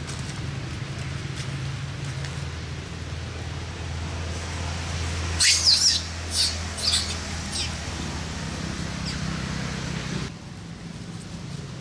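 A quick run of shrill animal squeaks, five or six in about two seconds, about halfway through, over a steady low hum.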